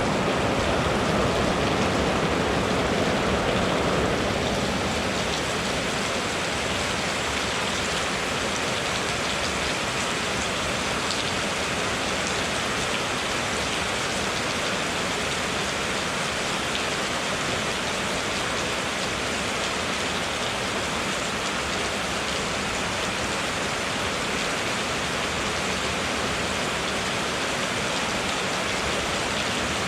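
Rain falling steadily on surfaces, an even hiss of drops, slightly louder for the first few seconds.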